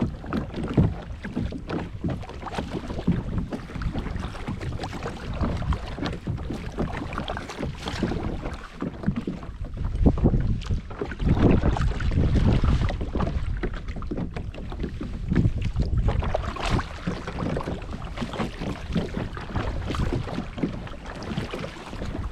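Kayak paddling: paddle blades dipping and splashing in the water, with irregular splashes and wind buffeting the microphone.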